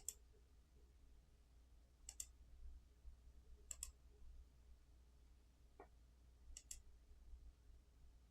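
Faint clicks of small buttons, mostly in quick pairs, four times, with one single click in between, over a low steady hum.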